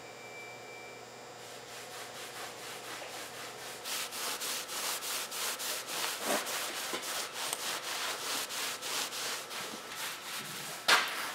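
Cloth rag scrubbing the wooden top of an old library card catalog with Old English polish, in quick back-and-forth strokes, about three or four a second, starting about four seconds in. A single sharp knock near the end.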